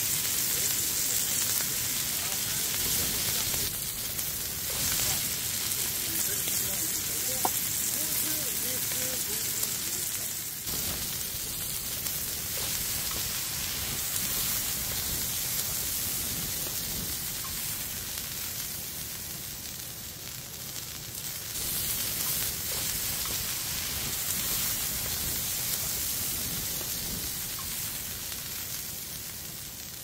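Beef steak frying on a hot round griddle plate: a steady sizzle.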